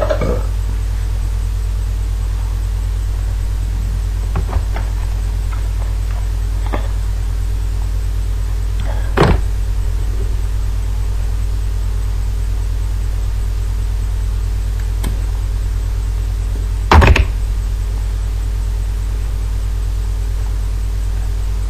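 Steady low electrical hum, with a few short knocks, the loudest about seventeen seconds in.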